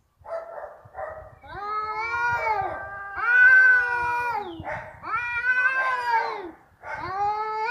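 A cat yowling: after a short rougher sound at the start, four long drawn-out calls, each rising and then falling in pitch. This is the angry, threatening yowl of a cat squaring up for a fight.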